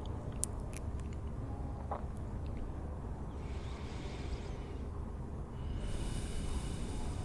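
Library ambience soundscape: a steady low rumble with a few faint clicks early on, then two soft hissing swishes, each a second or more long, in the second half.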